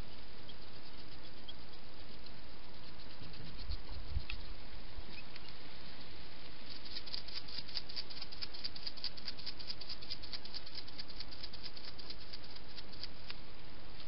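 A wild hedgehog feeding, its mouth making rapid clicking, smacking sounds for several seconds from about halfway in, over a steady hiss. A low thump comes about four seconds in.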